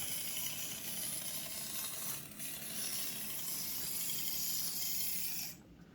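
Axial SCX24 micro crawler's small electric motor and gears whirring steadily as the truck crawls over rocks, cutting off about five and a half seconds in.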